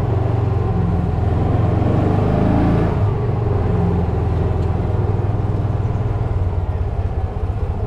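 Engine of a Kawasaki side-by-side utility buggy running under way, heard from the driver's seat. The revs climb for about three seconds, then drop back and hold steady.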